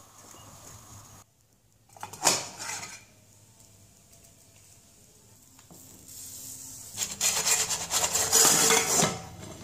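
A short clatter about two seconds in, then near the end about two seconds of scraping as a pizza is slid out of a nonstick frying pan onto a ceramic plate, the crust and the pan's rim rubbing against the plate.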